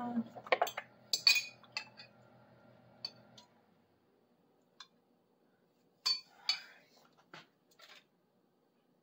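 Scattered sharp clinks and clicks of cutlery and kitchenware, several close together in the first two seconds and another cluster about six seconds in. A low steady hum underneath stops about three and a half seconds in.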